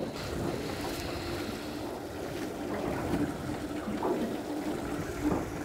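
Wind and water lapping against a small boat's hull on a choppy sea, over a steady low hum.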